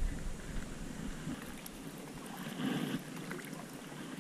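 Kayak paddling on calm water: faint sloshing and splashing of the paddle and water against the hull, with one softer swell about two-thirds of the way through.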